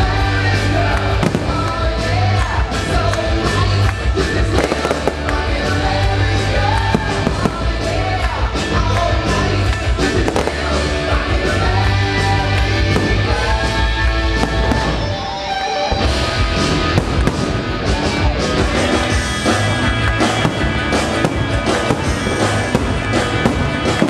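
Fireworks bursting with many sharp cracks and bangs over a loud music soundtrack with a heavy bass line. The bass drops out briefly about two-thirds of the way through, then returns.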